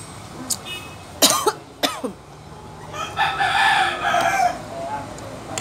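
A rooster crowing, one long crow about three seconds in, after two short sharp sounds a second or so earlier.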